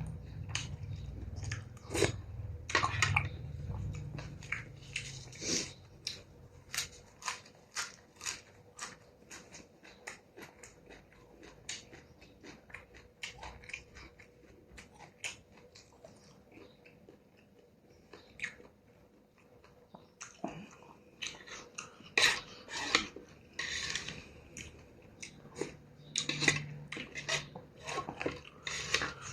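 A person eating beef noodle soup close to the microphone: chewing, with many short sharp clicks of utensils against the bowl.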